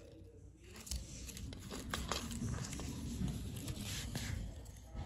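Close rustling and light clicks of hands handling a small plastic toy railroad crossing sign, with cloth brushing near the microphone.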